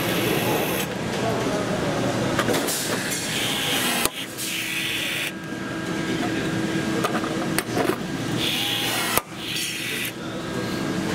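Milwaukee M12 cordless electric blind-rivet tool pulling rivets. Its motor gives several short whirs, each under a second, with two sharp snaps, one about four seconds in and one about nine seconds in. Voices murmur in the background.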